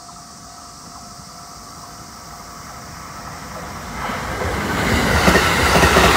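JR East E231 series suburban electric train approaching on the rails, growing from faint to loud. Its wheel and running noise surges about four seconds in as it comes alongside.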